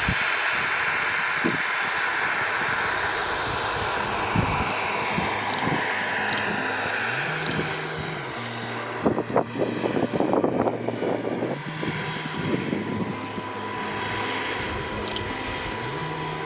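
Radio-controlled model helicopter in flight, a steady whirr from its rotor and motor whose pitch drifts slowly lower.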